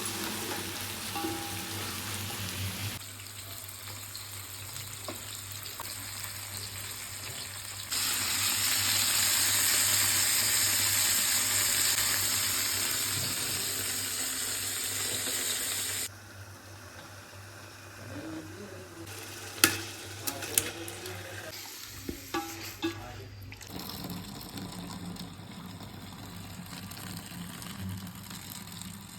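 Food frying and sizzling in a cooking pot, the hiss stepping louder and softer from one stretch to the next and loudest in the middle. A few sharp clinks of a utensil against the pot come about two-thirds of the way through.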